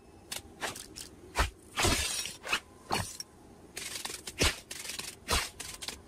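Cartoon sound effects: an irregular run of short, sharp clicks and knocks, with a few heavier thumps among them.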